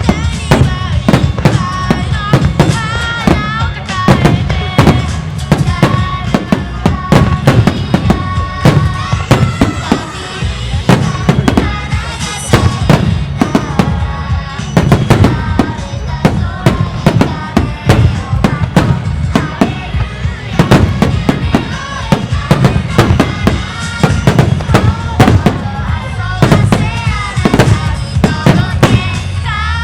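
Fireworks shells bursting in quick, irregular succession, dozens of sharp bangs over the stretch. A song with singing plays loudly throughout alongside them.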